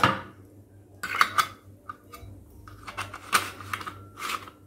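Stainless-steel murukku press being closed and fitted together, its metal parts clinking and knocking against each other in a string of short, sharp taps.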